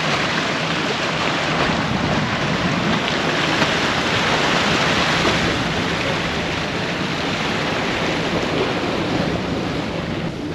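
Steady rush of small waves washing against a rocky shore, with wind on the microphone.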